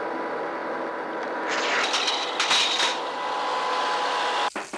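Upright vacuum cleaner running on a rug with a steady whine, louder and rattling for a stretch in the middle, then cutting off suddenly near the end.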